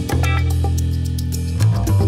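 Background music: a rock track with a sustained bass guitar note and a steady drum beat.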